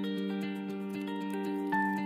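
Background music: a melody of held notes changing about every half second over a steady low note.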